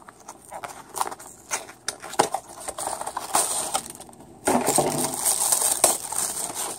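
Packaging of a boxed die-cast model car being handled and opened: scattered clicks and taps, then from about four and a half seconds in a steady stretch of crinkling.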